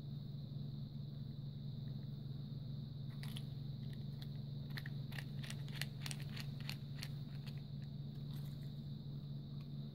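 Small Phillips screwdriver turning screws into a plastic butane torch lighter's body: a run of small clicks and creaks, thickest about five to seven seconds in, over a steady low hum.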